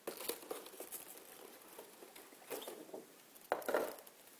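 Hands handling an open cardboard board-game box and the paper inside: small scratches, taps and rustles of cardboard and paper, with a louder paper rustle about three and a half seconds in.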